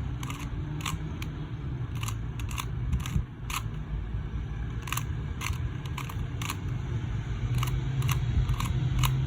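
QiYi 2x2 speed cube being turned layer by layer through a repeated algorithm: irregular sharp plastic clicks, about two a second.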